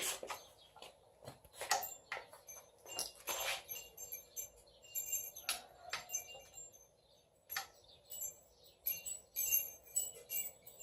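Metal hand tools clinking and clicking while engine bolts are torqued down: a string of irregular sharp clicks, several with a short metallic ring.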